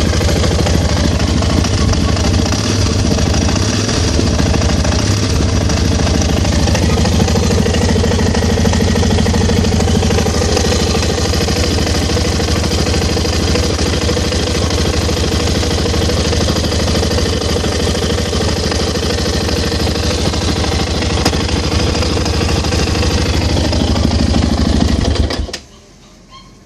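Aprilia Pegaso Strada's single-cylinder engine running with a knock, while the bike shows fault codes 12 and 46. It runs steadily and cuts off suddenly near the end.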